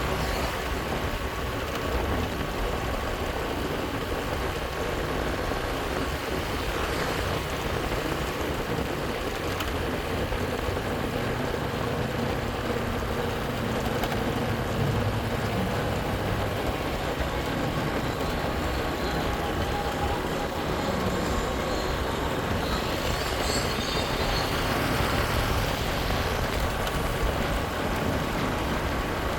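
Motorcycle running along a road, a steady noisy rumble of engine and road noise.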